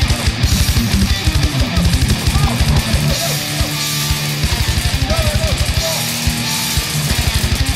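Heavy metal music with distorted electric guitar over a rapid, fast-repeating bass drum beat.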